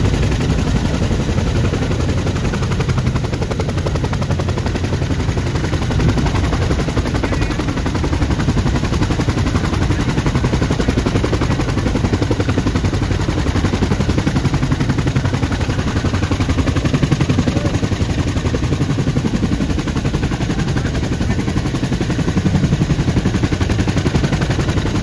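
CH-47 Chinook tandem-rotor helicopter running on the ground, both rotors turning. A loud, steady, rapid beat of blade chop over the whine of its twin turboshaft engines.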